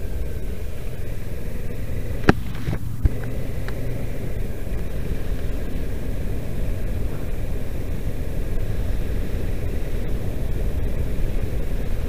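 Kawasaki Versys 650's parallel-twin engine running as the motorcycle rides along a snow-covered road, heard as a steady low rumble, with two sharp knocks about two and three seconds in.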